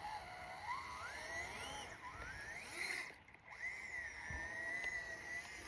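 Brushless electric motor of a 1/18-scale RC crawler whining faintly, its pitch rising and falling with throttle. It cuts out briefly just past the middle, then holds a steadier pitch.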